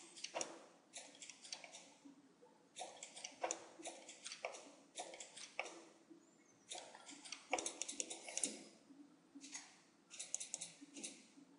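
Short bursts of quick clicking from a computer mouse and keyboard, about ten clusters of clicks with brief pauses between them.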